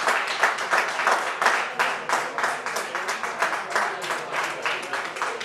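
Spectators clapping quickly and loudly for a goal, sharp hand claps several a second that fade a little near the end.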